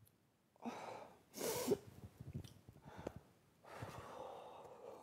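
A woman breathing heavily and audibly while upset: three loud breaths, the last one long, with a few small clicks between them.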